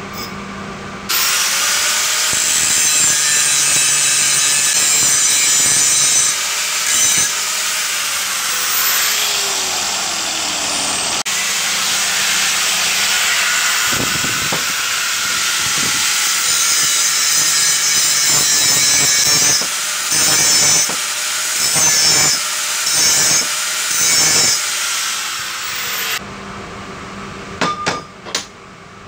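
Power tool working the steel of a winch brake spindle: a loud, harsh, steady noise that starts suddenly about a second in, breaks off briefly several times in its last few seconds, and stops a few seconds before the end, followed by a few light clicks.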